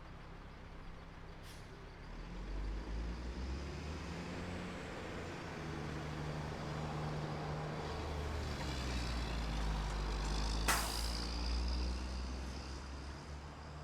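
A motor vehicle driving past on a street: a low engine rumble builds from about two seconds in to its loudest around ten seconds, then fades. A sharp click sounds near the loudest point.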